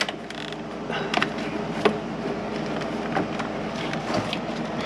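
Scattered light clicks and knocks of parts and hand tools being handled, over a steady low hum.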